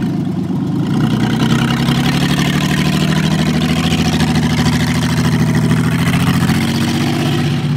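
Minivan engine running at a steady pitch as the van drives past close by over a dirt yard, its pitch lifting slightly about a second in, with tyre noise on the dirt.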